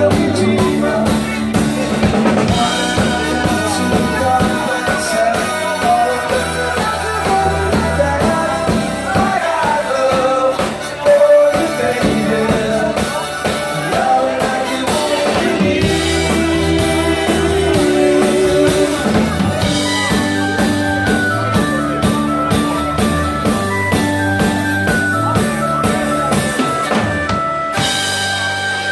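Live rock band playing a 60s-style beat song: a sung lead vocal over electric guitars, bass guitar and drum kit. The music changes abruptly about a second before the end.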